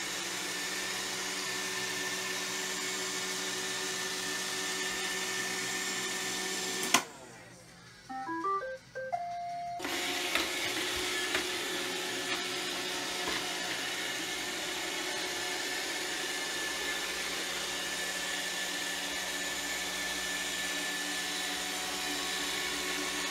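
iRobot robot vacuum running with a steady motor hum as it drives back to its charging dock. About seven seconds in the hum cuts off with a click. A short run of rising beeps and a held tone follow, then the hum resumes.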